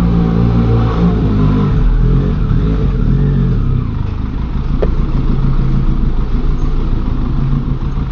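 Benelli Leoncino 500's parallel-twin engine running under way, its revs shifting up and down for the first few seconds. About four seconds in the engine sound drops lower and quieter.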